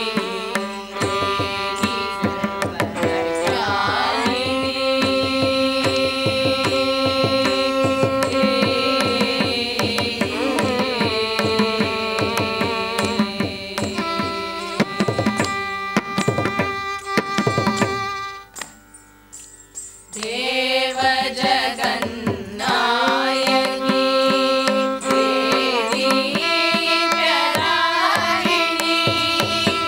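Carnatic music: a group of women's voices singing in unison, accompanied by mridangam and violin, with the drum strokes running under held sung notes. Past the middle the voices drop out, leaving a few drum strokes and a brief lull, then the singing comes back in.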